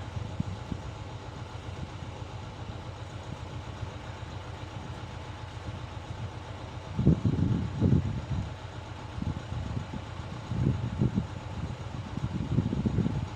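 Small engine of a motorised rotary tiller running steadily, with louder, uneven bursts about seven seconds in, again around eleven seconds and near the end as it churns the soil.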